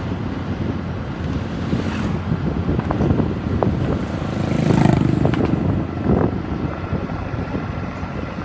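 Small motorcycle engine running steadily while riding along a road, with wind rumbling on the microphone. Oncoming motorcycles pass about five seconds in, the loudest moment.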